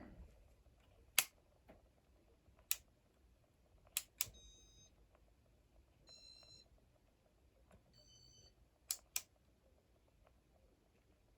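Casablanca RMM1 computerized ceiling fan control being worked in flick mode: about six sharp switch clicks, some in quick pairs, with three short electronic beeps between them as the control responds. The control is working properly.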